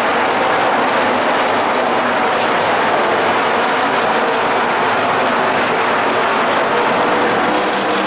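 A pack of NASCAR Craftsman Truck Series race trucks' V8 engines running at speed: a loud, steady drone.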